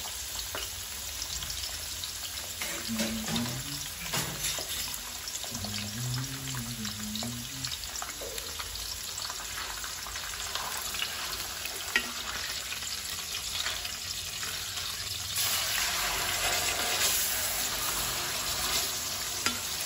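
Boneless fish fillets frying in oil in an aluminium pot: a steady sizzle with scattered small pops. About three-quarters of the way through, the sizzle gets louder as a spatula works under a fillet and turns it.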